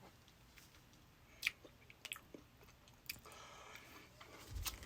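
Faint chewing of a Bean Boozled jelly bean: soft, scattered mouth clicks and smacks, with a sharper click about a second and a half in.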